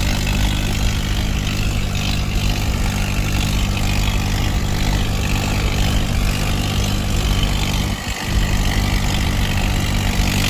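Diesel engine of a farm machine, a combine harvester or tractor, running steadily under a broad mechanical clatter, with a brief drop about eight seconds in.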